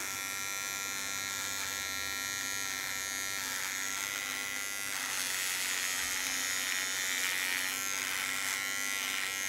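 Small handheld electric trimmer buzzing steadily as it shaves off a thick mustache, its buzz shifting slightly as it works through the hair.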